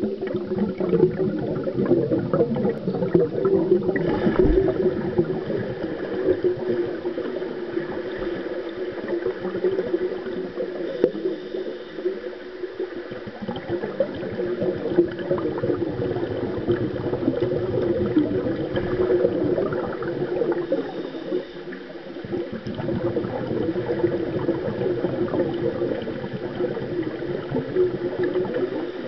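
Muffled churning and bubbling of pool water heard through a submerged camera, stirred by swimmers moving in the water.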